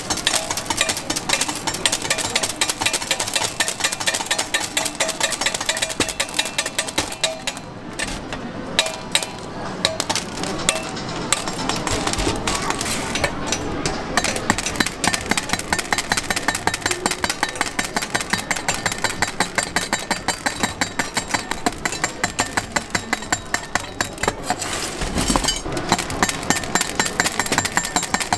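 A large steel cleaver rapidly chopping hard-candy rods into small pieces on a stainless-steel table. Quick, sharp chops about four a second, each one the blade snapping through the candy and striking the steel.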